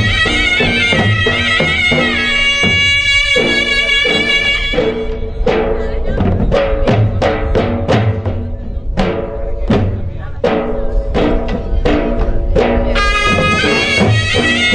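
Gujarati ras folk dance music: a held, reedy melody line over drums, then a stretch of sharp drum strikes about two a second, with the melody coming back near the end.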